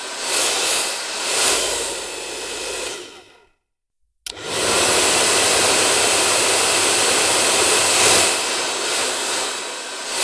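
Hair dryer blowing with a rushing whoosh that swells and dips, then winding down to silence about three seconds in. A click follows, and the dryer switches back on, running steadily again.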